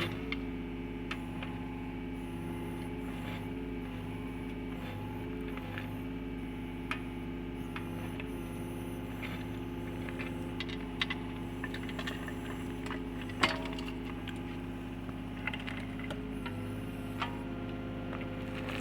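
Excavator engine running steadily at a constant speed, with scattered light clicks and knocks and one sharper knock about thirteen seconds in.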